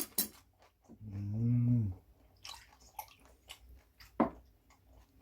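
A person chewing a mouthful of raw rockfish wrapped in kimchi, with scattered crunching clicks. A closed-mouth hummed "mmm" of enjoyment comes about a second in.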